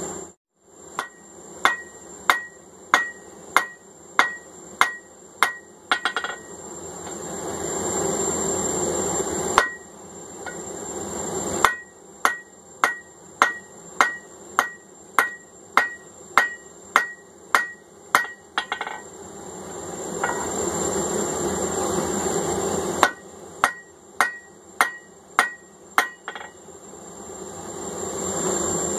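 Hand hammer striking hot steel on an anvil in steady runs of about two blows a second, each blow ringing briefly, drawing out the end of a bar into a punch. Between the three runs of blows a steady rushing noise swells up.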